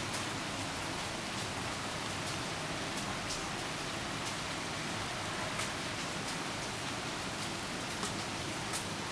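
Steady rain falling, a constant hiss with scattered sharp ticks of single drops striking close by.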